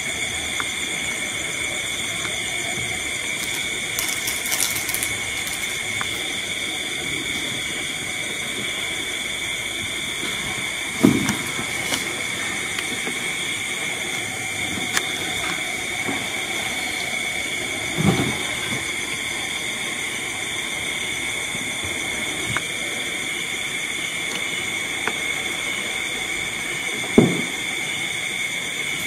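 Steady hiss with a high-pitched whine running under it, broken three times by a brief short sound.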